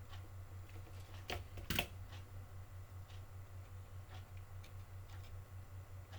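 Light clicks and knocks of small tools and parts being handled on a workbench, with two louder clicks close together about a second and a half in, over a steady low pulsing hum.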